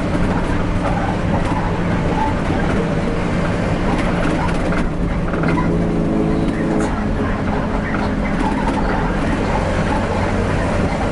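Mitsubishi diesel engine of a medium-size bus running steadily at cruising speed, heard inside the cabin with tyre and road noise. A second pitched hum joins for about two seconds around the middle.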